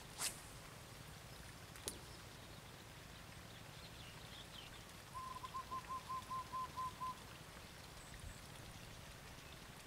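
A bird calling a quick, even series of about ten short notes lasting about two seconds, starting about five seconds in. Two sharp clicks come earlier, one near the start and one about two seconds in.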